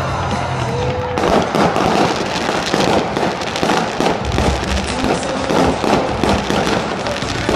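Fireworks display: about a second in, a dense run of rapid crackling pops and bangs begins and keeps going, with occasional deeper booms.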